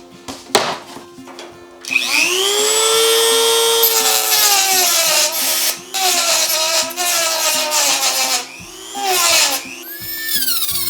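Table saw switched on with a few knocks before it. About two seconds in its motor and blade whine rises quickly and settles, then runs with the pitch dipping and recovering several times near the end, as the blade takes load in a cut.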